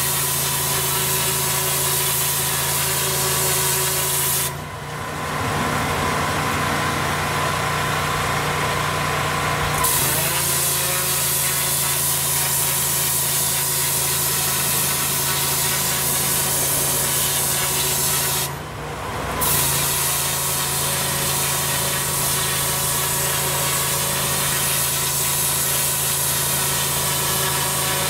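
High-pressure water jet from a pressure washer's twin-headed turbo lance blasting moss and grime off concrete block paving, a steady hiss over the low hum of the machine. The spray cuts out for about five seconds around five seconds in and again briefly near nineteen seconds, while the machine's hum carries on.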